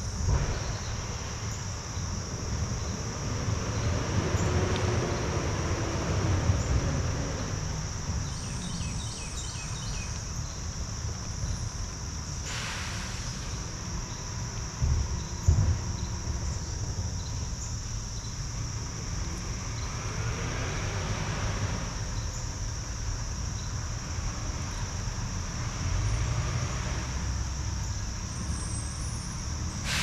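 Steady high-pitched insect chorus over a low outdoor rumble, with a few slow swells and brief swooshes like passing traffic.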